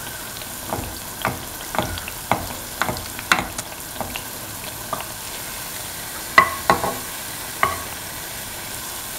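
Semolina pancake batter shallow-frying in hot oil with a steady sizzle, while a metal spoon taps and scrapes against the pan in frequent sharp clicks. A few louder, ringing clinks come about two-thirds of the way through, as the fried pancake is worked with the spoon.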